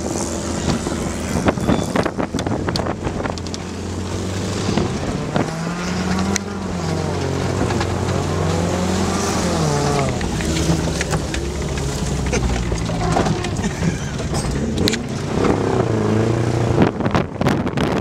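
A 1982 Volkswagen Scirocco's four-cylinder petrol engine being driven hard, its revs rising and falling again and again. Sharp knocks and bangs run through it and come thicker near the end.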